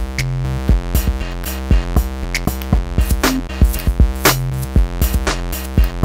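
Background electronic music with a steady drum-machine beat and a synth bass line.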